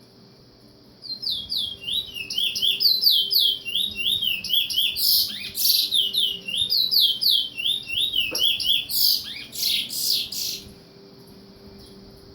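A pet bird singing a fast run of repeated downward-sweeping chirps, starting about a second in and stopping about ten and a half seconds in, broken by a few louder, harsher calls in the middle and near the end.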